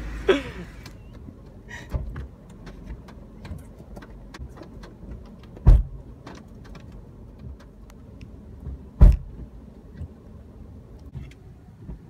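Two heavy car-door slams about three and a half seconds apart, among scattered small clicks and rattles over a low rumble.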